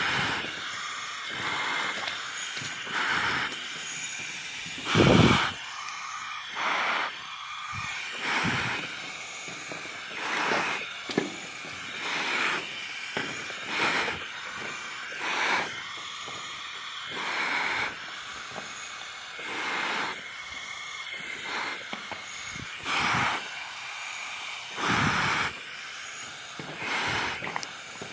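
A person breathing, close and regular, one noisy breath about every second or two.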